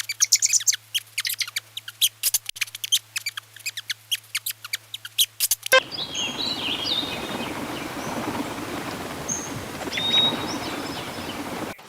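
Small birds chirping rapidly in a dense run of sharp, high notes. About six seconds in, this cuts abruptly to a steady rushing background with a few scattered high bird whistles.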